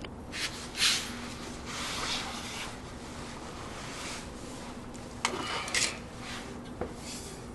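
Rubbing and scraping of parts being handled, in several separate strokes with a few short knocks, over a faint steady hum.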